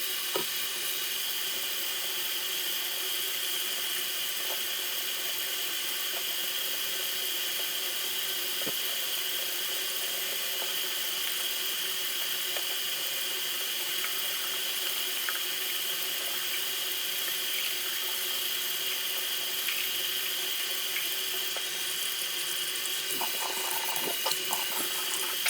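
Water running steadily from a bathroom sink tap, with a few faint ticks.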